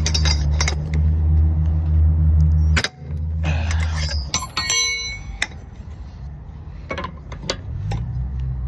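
Metal clinks and a ringing clang of a steel socket and breaker bar being worked onto a wheel's lug nuts. Under it runs the low, steady drone of an idling vehicle engine, which drops away about four seconds in and builds again near the end.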